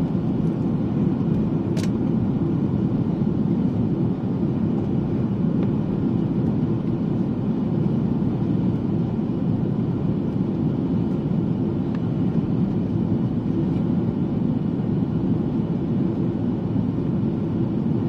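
Steady rumble inside the cabin of an Airbus A330 in flight: jet engine and airflow noise, even and unchanging.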